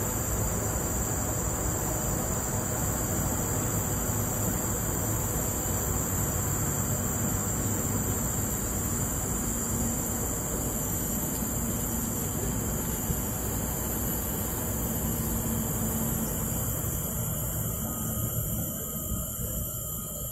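Steady high-pitched drone of insects in the forest, over a constant low rumble of expressway traffic. The insect drone fades near the end.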